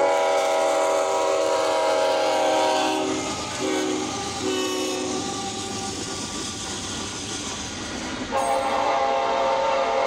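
Diesel freight locomotive's air horn sounding a chord of several tones. A long blast comes first, then shorter blasts between about 3.5 and 5 seconds in, then another long blast starting after 8 seconds, over the rumble and wheel clatter of the passing train. These are the warning blasts for the grade crossing.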